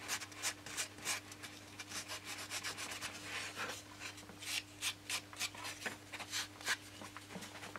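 Scrunched-up sandpaper rubbed in short, irregular strokes against the end of a thin balsa elevator, rounding the edge off. A faint steady hum runs underneath.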